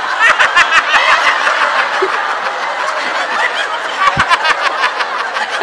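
Large audience laughing together, a dense crowd of many voices, swelling again about four seconds in.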